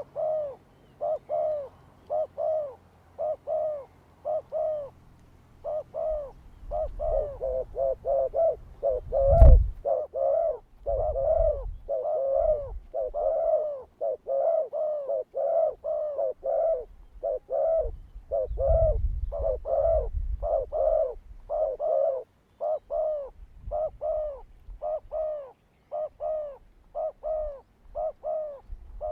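A dove cooing over and over in short arched notes that repeat steadily. About nine and a half seconds in there is a single sharp knock, and low rumbling noise comes and goes under the calls.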